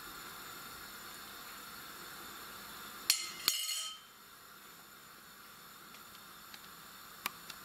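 Two sharp metallic clinks with a brief ring, about three seconds in, from metal knocking against a stainless steel soup pot, over a faint steady hiss. A single lighter tick comes near the end.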